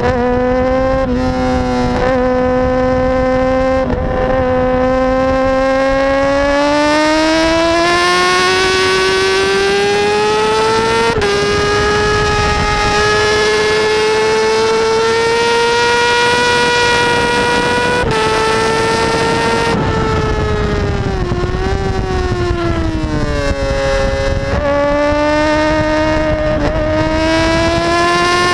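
Kawasaki ZX6R inline-four engine at high revs on track, heard from the bike's tail. Its note climbs with brief changes at gear shifts, falls with a few wobbles past the middle as the rider shuts off and downshifts, then climbs again near the end. Wind and road rush run steadily underneath.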